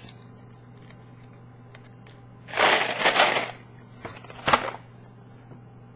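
Mike and Ike candy packaging being handled and crinkled open: a crinkling, crushing noise about two and a half seconds in, lasting about a second, and a shorter one about four and a half seconds in.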